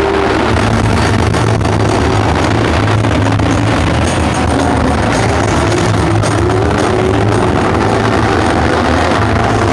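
Several autograss special racing cars' engines running hard around an indoor arena track, their pitch rising and falling as they rev through the laps.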